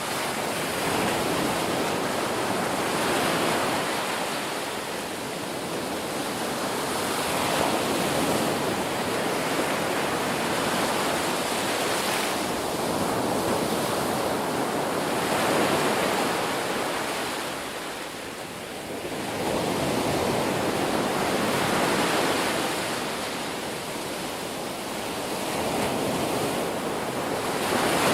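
Ocean surf: waves washing continuously, swelling and easing every few seconds, with a deeper lull about two-thirds of the way through.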